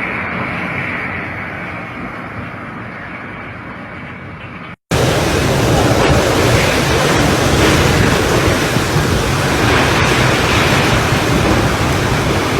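Typhoon wind and rain making a steady rushing noise. It cuts out briefly about five seconds in and comes back louder and harsher.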